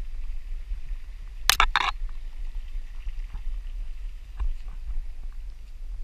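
Low wind rumble on the microphone of a camera carried on a pole by a walking hiker. A sharp double knock comes about a second and a half in, and faint ticks are scattered through the rest.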